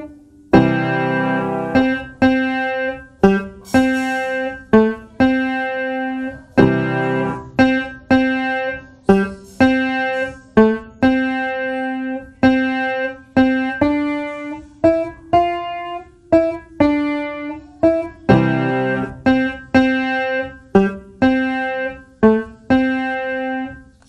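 Background piano music: single pitched notes struck in a steady pulse, about one and a half a second, each ringing and fading.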